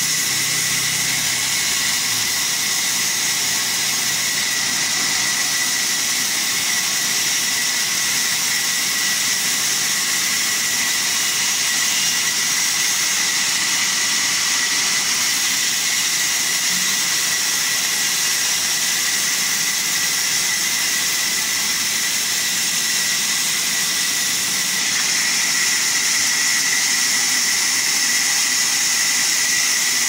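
Sawmill band saw running steadily as a log is fed through it, the blade ripping lengthwise through the wood with a constant whine and hiss.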